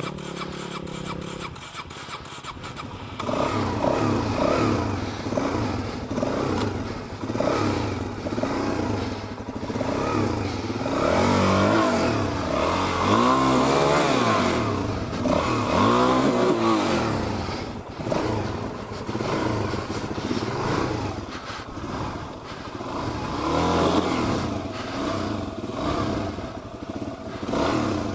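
Dual-sport motorcycle engine running low, then from about three seconds in revving hard in repeated rising and falling bursts.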